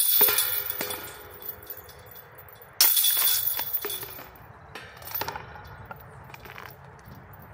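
Two putted golf discs strike the hanging steel chains of a Prodigy disc golf basket, the first right at the start and the second about three seconds in, each setting off a loud jangling of chains that rings and fades over about a second. Softer chain rattles follow as discs are lifted out of the basket.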